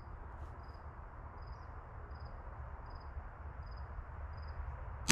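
A cricket chirps faintly and evenly, a little faster than once a second, over a steady low outdoor rumble. A single .22LR rifle shot cracks right at the very end.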